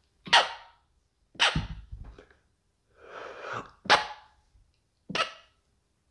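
A man coughing in about four sharp single coughs spread out, with smaller throat-clearing sounds between them, from the smoke of a water-bong hit.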